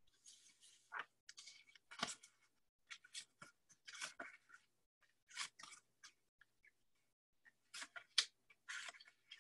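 Faint, irregular scratchy crackles and clicks in short bursts about every second, picked up by a computer microphone.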